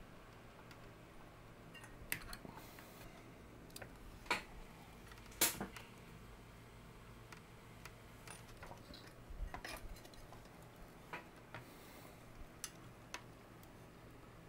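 Scattered light clicks and taps of hands handling amplifier circuit boards and wiring, the two sharpest a little after four and five seconds in.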